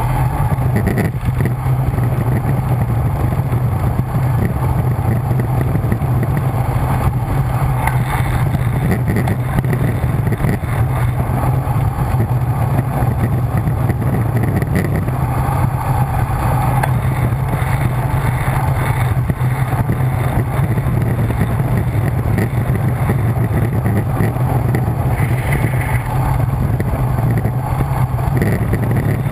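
Wind rushing over the microphone of a camera on a bicycle descending a mountain road at speed: a loud, steady rumble with no breaks.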